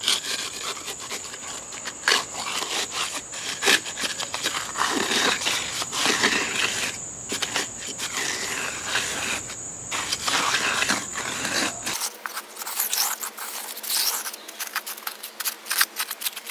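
A steel concrete edging tool scraping back and forth along the edge of wet concrete to round it off, under a steady high-pitched insect drone. About twelve seconds in, the sound changes abruptly: the insect drone and the low background cut out.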